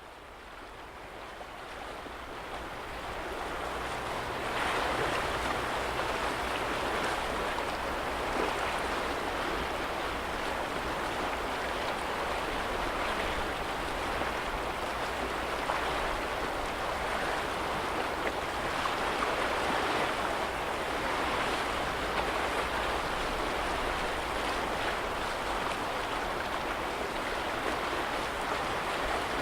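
Small lake waves lapping against the shore: a steady wash of water with gentle swells, fading in over the first few seconds.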